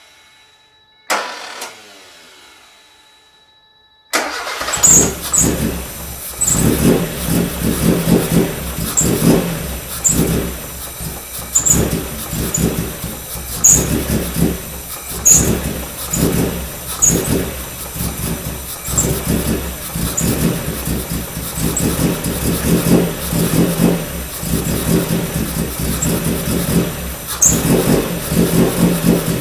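A short sharp sound about a second in; then, about four seconds in, the 2000 Mazda Miata NB 1.8-litre inline-four catches on its first start and runs through a 4-2-1 header and Yonaka exhaust. It runs unevenly, surging up and down, with a sharp high tick every second or two, rich on a Megasquirt fuel map that is not yet tuned.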